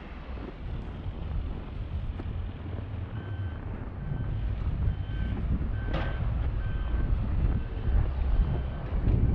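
A vehicle's reversing alarm beeping at an even pace, about one beep a second, starting a few seconds in. Under it are a low engine rumble that grows louder and wind on the microphone.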